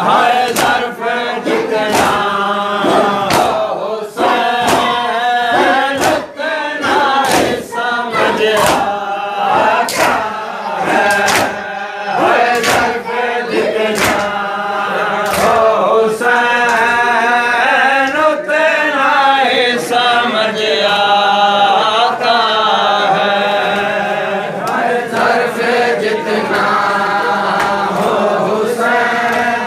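Shia mourners chanting a noha for Hussain in unison. Sharp hand slaps of matam (chest-beating) keep a steady beat roughly every three-quarters of a second.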